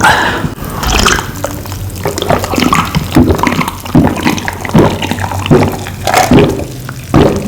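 A person gulping cold Coca-Cola from a glass: a steady run of loud swallows, about one a second.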